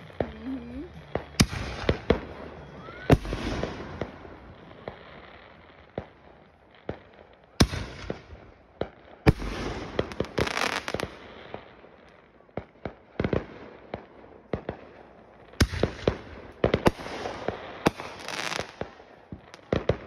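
Consumer aerial fireworks going off: sharp bangs one to a few seconds apart, several followed by a brief spell of crackling noise from the bursting stars.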